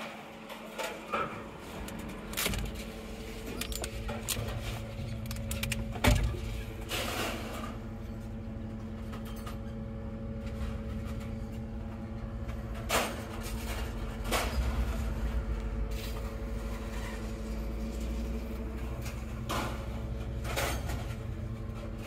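The Al-Jon 580 car logger's engine running steadily, heard from inside the operator's cab, its low rumble building about two and a half seconds in and growing stronger in the second half. Sharp knocks and clunks come now and then, loudest about six seconds in.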